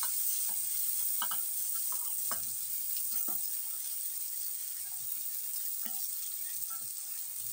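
Boiled chana dal sizzling as it goes into hot oil with a spice tempering in a kadhai, with short scrapes and taps of a metal slotted spoon spreading it.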